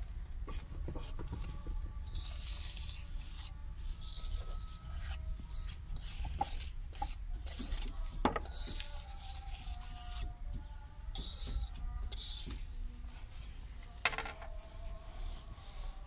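Gritty scraping and rubbing of metal tools and pipes against wet concrete in a metal mortar mould, in several long strokes with a couple of sharp knocks.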